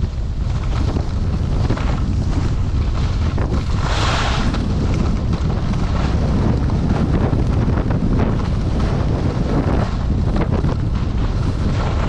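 Wind buffeting the microphone of a skier moving downhill, over the hiss and scrape of skis on groomed snow, with a louder scrape about four seconds in.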